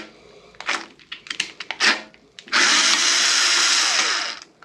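Black & Decker cordless screwdriver running steadily for about two seconds, starting about halfway in, backing out a screw on a motorcycle's license plate bracket. A few light clicks and taps of the bit and bracket being handled come before it.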